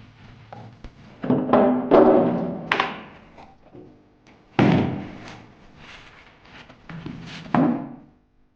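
Music with four loud sudden hits that each die away over about a second.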